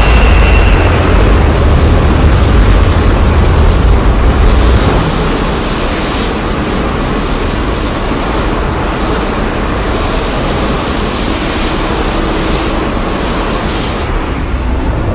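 A loud, dense rumbling creature sound effect, steady and without a clear pitch, made up for a fictional dragon kaiju. About five seconds in the deep rumble eases a little and runs on at a slightly lower level.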